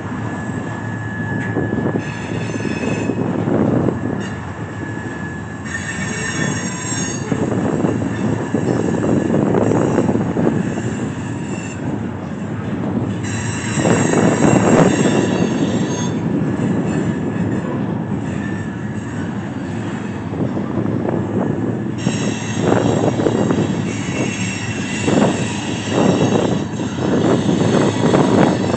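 Loaded freight cars of a long steel train rolling past on jointed track, with the wheels squealing in several bouts of high-pitched tones as they grind around the curve of a wye.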